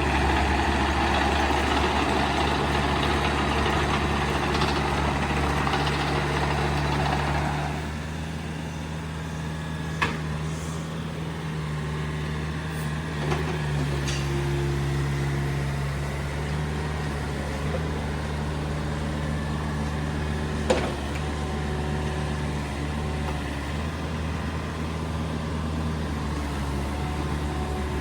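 Komatsu PC45MR-1 mini excavator's diesel engine running steadily, with a louder rushing noise over it for the first several seconds that then drops away. A few sharp knocks are heard later on.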